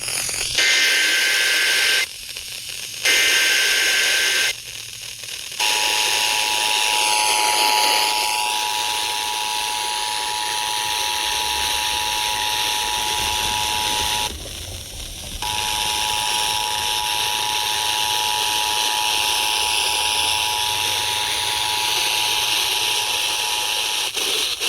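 Emergency Alert System test heard through a hissy radio: two short bursts of SAME header data, then the EAS two-tone attention signal sounding steadily for about eighteen seconds, with a dropout of about a second partway through.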